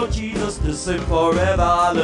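Gospel praise-and-worship music: a voice singing a melody over a band with a steady bass and a drum beat.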